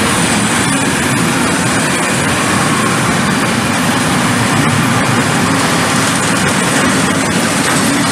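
Freight train of hopper wagons rolling past close by: a loud, steady rumble of steel wheels on the rails.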